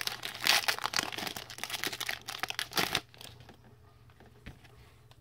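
Foil trading-card pack wrapper crinkling and tearing as it is pulled open by hand. It stops about three seconds in, leaving only faint handling noise and a small click.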